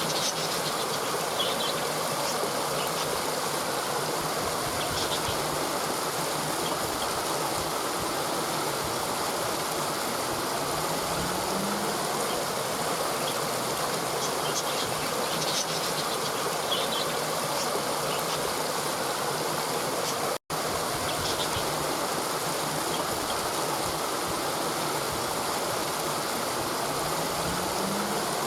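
Waterfall water falling and splashing in a steady, even rush, with faint high chirps now and then. The sound cuts out for a split second about twenty seconds in.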